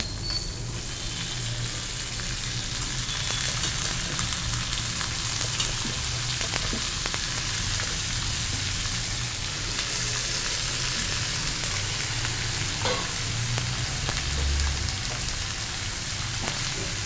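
Cubed brinjal, still wet from washing, sizzling steadily in hot oil with a mustard-seed tempering in a steel kadhai. A steel spatula stirs it, scraping and clicking against the pan now and then.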